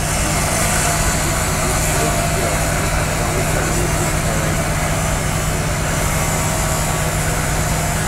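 A heavy diesel engine running steadily at a constant pitch, with voices of the crew in the background.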